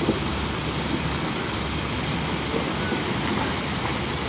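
Intercity coach bus engine running steadily as the bus pulls slowly away from the terminal across the yard.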